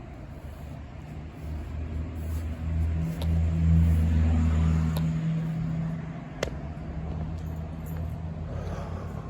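A car passing close by: its low engine hum grows louder, peaks about four seconds in and fades away by about six seconds, with a few light clicks afterwards.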